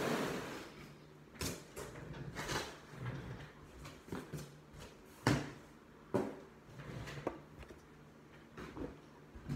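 Irregular knocks, bumps and rustling as shoes and a box are handled and rummaged through, with the loudest knock about five seconds in.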